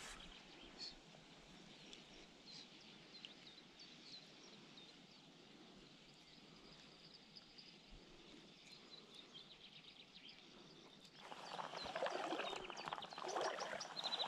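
Faint birds chirping over quiet riverside ambience. About eleven seconds in, a much louder rough noise with a fast ticking in it sets in and runs to the end.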